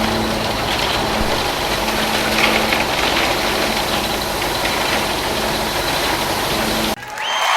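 Steady engine running, a heavy-machine idling sound, which cuts off abruptly near the end as a different sound comes in.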